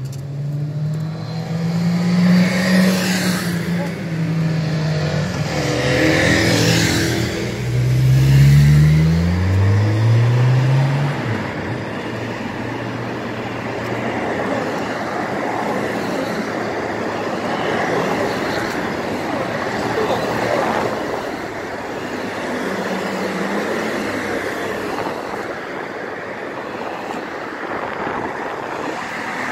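Motorcade passing at speed. In the first ten seconds or so, motorcycle engines rise and fall in pitch as they go by one after another. After that comes a steady rush of cars and vans passing, mostly tyre and road noise.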